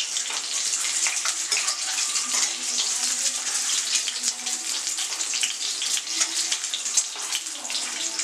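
Whole boiled eggs frying in hot mustard oil in a steel kadai, sizzling steadily with a dense crackle of small pops, while a steel spatula turns them.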